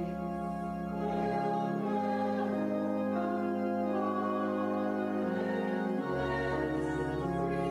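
Organ playing slow, sustained chords that change about two seconds in and again about six seconds in.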